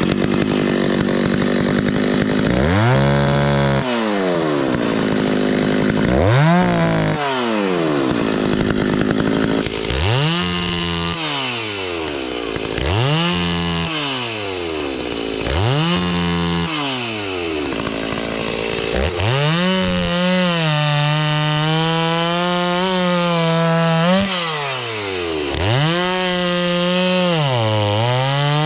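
Stihl two-stroke chainsaw running and cutting wood. Its engine speed drops and climbs again every two to three seconds, then holds at high revs for the last third with a couple of brief dips.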